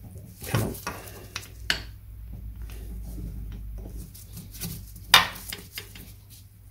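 A few light metallic clinks and knocks, the loudest about five seconds in, from hands handling a piston and parts on the stripped top end of a Triumph Trident T150V engine. A low rumble runs for a second or so in the middle.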